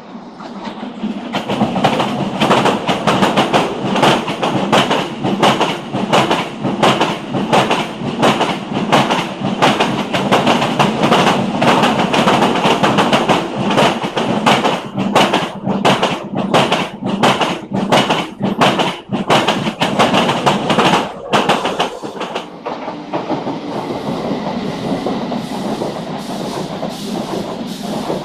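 Renfe train passing close by: a loud rush of wheels on rail with rapid, regular clickety-clack knocks as the wheels cross the rail joints. The noise drops off sharply about three-quarters of the way through as the last car goes by, leaving a quieter rumble.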